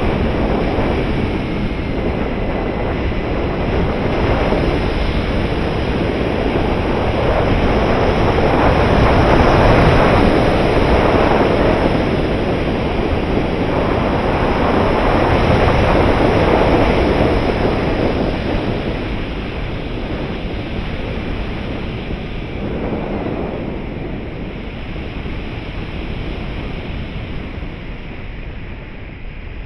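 Wind rushing over an onboard camera's microphone on a 3.6 m RC glider in flight, a loud rushing noise that swells and eases with airspeed, loudest around the middle and dying down toward the end.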